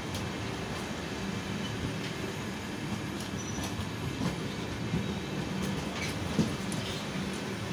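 Red-and-grey LHB passenger coaches of an express rolling past. The wheels on the rails make a steady rumble, with a few sharp clacks over the rail joints; the loudest comes about six seconds in.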